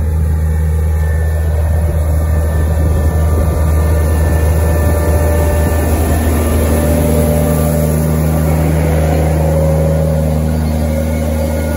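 Tractor engine running steadily under load while pulling a seed drill at sowing, a deep even drone with a steady pitch throughout.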